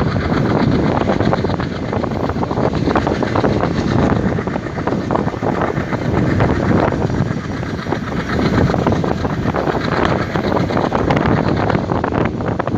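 Express train hauled by an ALCO WDG3A diesel locomotive running under way: a dense, steady rumble and clatter, with wind buffeting the microphone.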